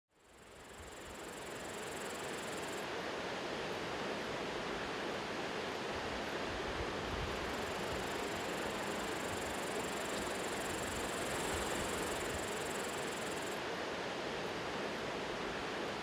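Steady rushing noise, like falling water or wind, fading in over the first couple of seconds and then holding level.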